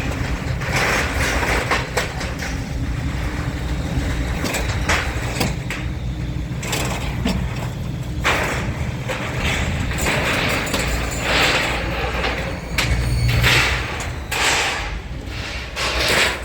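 Scrapyard grapple-claw material handler working: its engine runs steadily underneath while scrap metal crashes, clatters and scrapes in repeated bursts as the claw grabs and drops it, the heaviest bursts in the second half.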